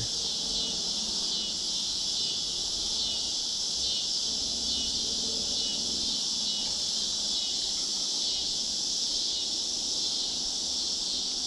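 A steady, high-pitched chorus of insects, such as crickets, droning without a break.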